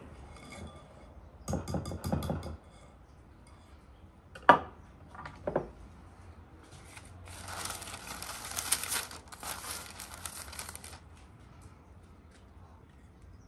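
Kitchenware clatters briefly, then a metal baking tray is set down on a wooden table with a sharp knock and a smaller knock a second later. After that, parchment paper rustles and crinkles for about four seconds as it is unrolled and spread over the tray.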